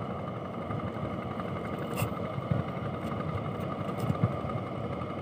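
Steady running of a distant engine across the harbour, with a few light clicks about two and four seconds in.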